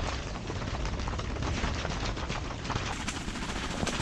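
Fabric of a Väinö Bunker 3 pop-up ice-fishing tent flapping and rattling in strong, gusty wind: a dense, rapid, irregular crackle with a low rumble underneath.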